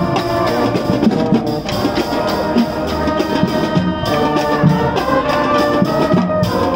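High school marching band playing: the brass holds chords over a steady beat of drums.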